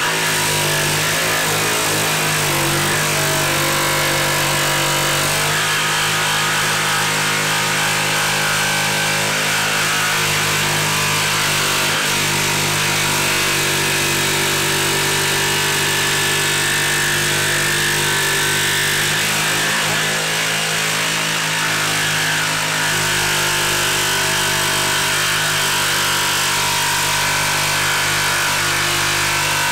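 Ryobi 18V brushless jigsaw cutting through a 2x4, its motor starting at once and running loud and steady under load. The blade is on orbital setting 1, a setting that cuts a 2x4 cleanly without much vibration.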